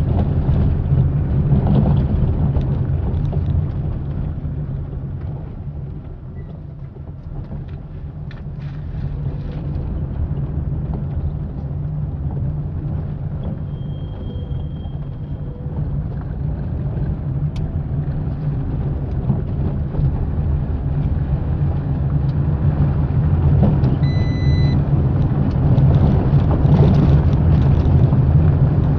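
Fiat Palio being driven, a steady low rumble of engine and tyres that eases off about six seconds in and builds again toward the end. A few faint clicks are heard along the way.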